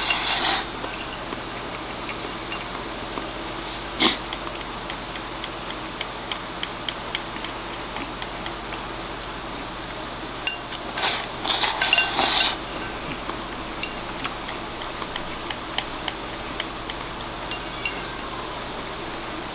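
Wooden chopsticks clicking and tapping against a ceramic rice bowl while eating, with one sharper click about four seconds in. There are longer scraping bursts at the start and again around two-thirds through, as rice is shoveled from the bowl's rim into the mouth.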